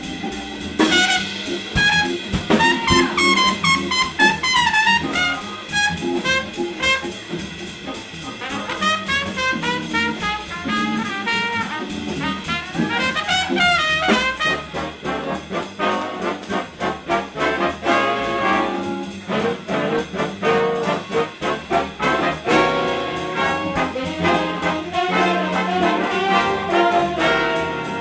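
Big band playing swing jazz live: a trumpet solo over the band's brass and rhythm section, with the full ensemble of brass and saxophones playing together in the second half.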